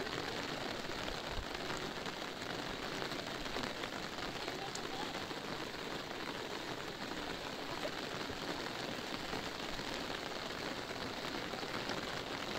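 Steady rain falling, pattering on a fabric umbrella held overhead, with scattered individual drop taps.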